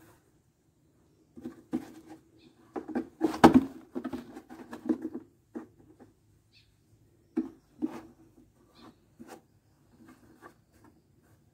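A large black plastic flower pot being handled and turned in the hands: scattered knocks, taps and scrapes of hands and fingers on the plastic, loudest in a cluster about three to five seconds in.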